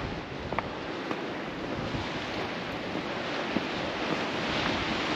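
Steady wind buffeting the microphone over the wash of sea surf: an even, rushing noise with no distinct events.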